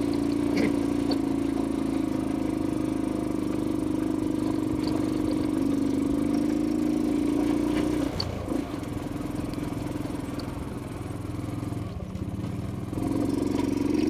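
Motor scooter engine running steadily while riding a rough dirt track. About eight seconds in the engine note drops and quietens as the throttle eases, then picks up again near the end.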